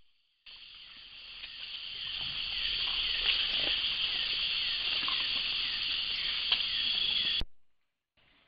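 Dense chorus of forest insects: a steady, high-pitched buzz with short falling chirps repeating about twice a second. It starts about half a second in and cuts off abruptly near the end.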